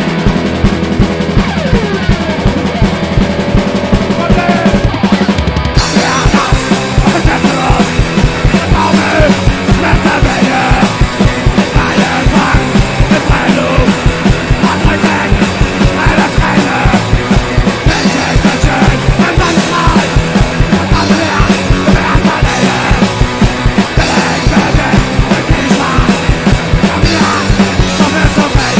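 Punk rock band playing live: electric guitar, bass guitar and drum kit. The sound gets fuller and brighter about six seconds in.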